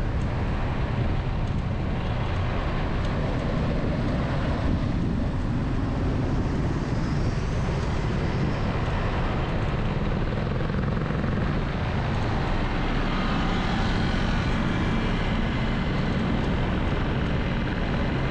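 Steady low rumble of a vehicle riding along a busy city road among other traffic.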